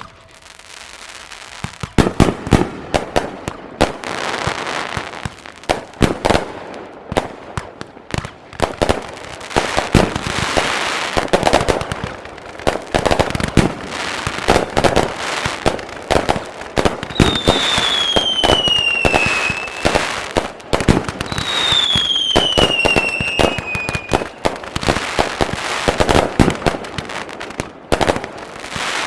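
Fireworks display going full bore: a rapid, unbroken barrage of aerial shell bursts, bangs and crackle that starts about two seconds in. Two whistling fireworks sound in the second half, each a falling whistle.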